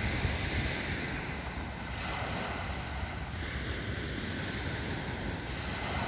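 Small Lake Ontario waves steadily washing onto a pebble beach, with wind buffeting the microphone.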